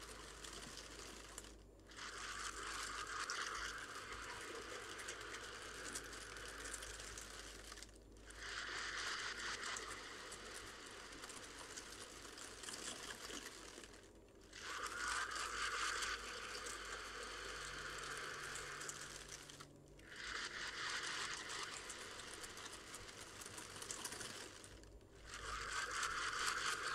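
A person breathing in and out of a plastic bag held over the nose and mouth, rebreathing the same air, the plastic crinkling as the bag fills and empties. The breaths come in a slow rhythm, with a brief pause about every five to six seconds.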